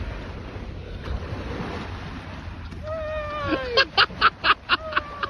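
Surf and wind noise at the shore, then about three seconds in a drawn-out falling call followed by a quick run of sharp, loud bursts, about five a second.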